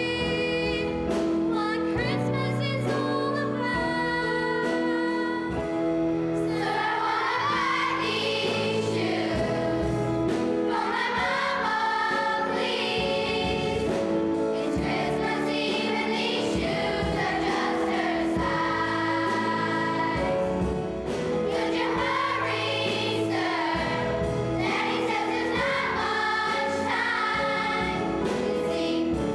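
A choir singing with sustained instrumental accompaniment. The sound grows fuller and brighter about six or seven seconds in.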